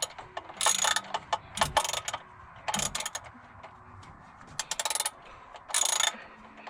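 Socket ratchet wrench clicking in about five short bursts of rapid ticks, as bolts are worked on while fitting a new alternator.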